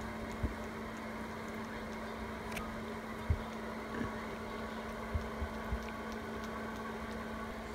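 Steady low electrical hum over faint background noise, broken by a few short low thumps: one about three seconds in and three close together near five seconds.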